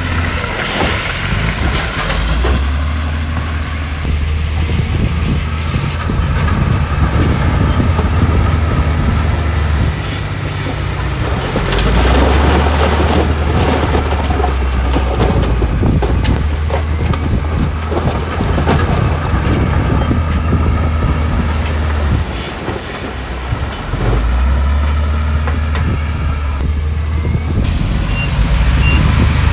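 Diesel engine of heavy earthmoving machinery working under varying load, its low drone stepping up and down every few seconds over a clattering background. A reversing alarm begins beeping near the end.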